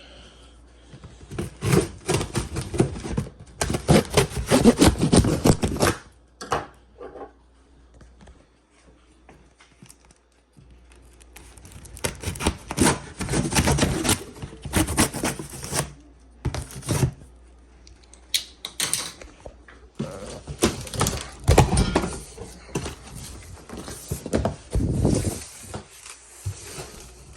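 Packaging of a boxed exhaust header set being opened and handled one-handed: rustling and crackling with knocks, in three long bouts with quieter pauses between.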